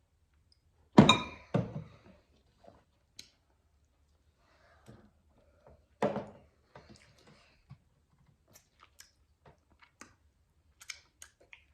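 Close-up eating sounds: chewing and small clicks, with louder knocks of tableware about a second in (two close together) and again around six seconds.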